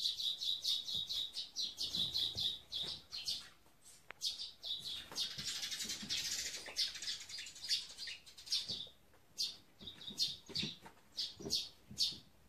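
Small birds chirping in quick, repeated high notes, thick at first and again in a busier overlapping stretch around the middle, then thinning to scattered chirps.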